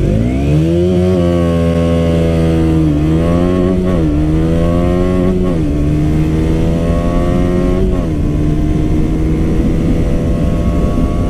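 2017 KTM 125 Duke's single-cylinder four-stroke engine on its stock exhaust, accelerating flat out from a standstill. The pitch rises steadily through each gear and dips briefly at four upshifts spread through the run.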